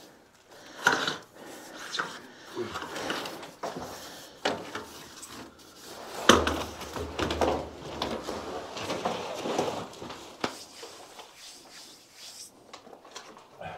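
Irregular knocks, clatters and scrapes of a water pipe and its fitting being handled and moved against a stone wall, with one louder thump about six seconds in.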